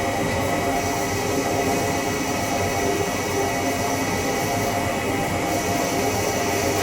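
CNC lathe running during taper turning: a steady machine noise with a thin high whine that comes in about a second in, drops out near five seconds and returns.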